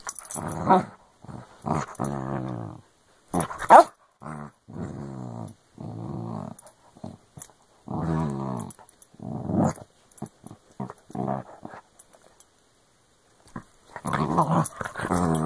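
A dog play-growling in repeated bursts while mouthing and tugging at a person's hand, with one sharper, higher yap about four seconds in and a longer run of growling near the end.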